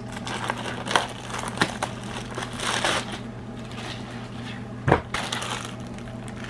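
Clear plastic packaging bag crinkling and rustling as it is pulled open and handled, with a few sharp crackles, the loudest near five seconds in. A steady low electrical hum runs underneath.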